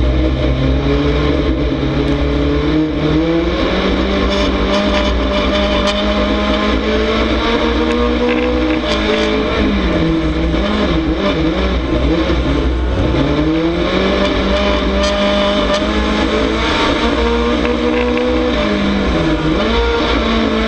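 A dirt-track race car's engine at racing speed, heard from a camera mounted on the car. The revs climb over the first few seconds, dip and recover several times around the middle as the throttle is lifted and reapplied, and drop sharply once more near the end before picking up again.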